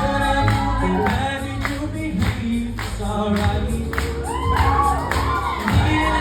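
Music: a song sung by several voices in harmony over a strong bass line and a steady beat.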